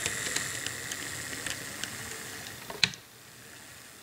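HO scale ScaleTrains Tier 4 GEVO model locomotive running along the track: a steady high motor and gear whine with scattered light ticks. The whine fades about three seconds in, just after a sharper click.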